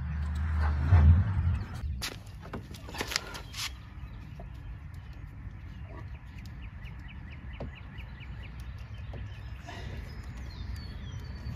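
Birds chirping in the background over a low rumble. A short burst of rustling and clicks comes about two seconds in.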